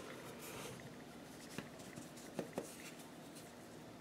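Plastic bowl scraper scraping a stiff bread dough out of a glass mixing bowl, faint, with a few small clicks and taps in the middle.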